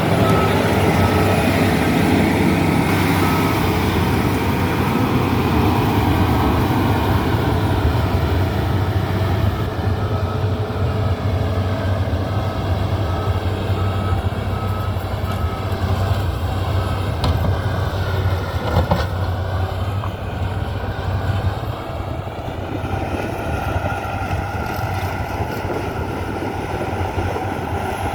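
Heavy diesel machine engine running steadily. A reversing alarm beeps in a repeating pattern at the start and again about ten seconds in.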